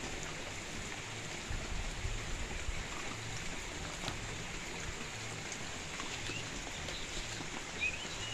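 Steady rain, an even hiss, with a few short high chirps near the end.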